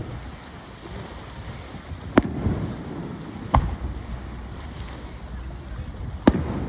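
Fireworks shells bursting: three sharp bangs about two, three and a half and six seconds in, the last the loudest, over a steady low background rumble.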